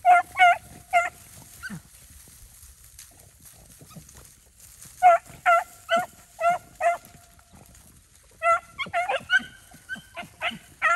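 Beagles baying as they run a jumped rabbit's scent trail: hounds giving tongue on the track. The short, ringing bawls come in three bursts, about five at the start, about five more around five seconds in, and then a faster, overlapping run of calls from two or more dogs from about eight and a half seconds.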